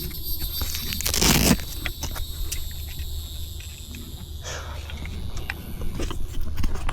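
Scattered small clicks and a scrape of broken plastic ear muffs being handled, with one louder rustle about a second in, over a steady low hum and a thin high insect-like drone.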